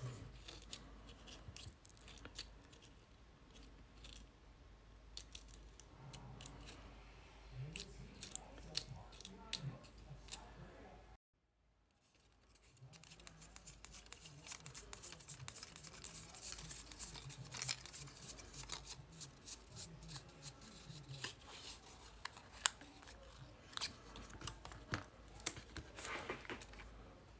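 Card stock crackling and ticking as a spiral-cut paper flower is rolled up on a slotted quilling tool, a dense run of quick dry clicks. The sound drops out completely for about a second a little before halfway.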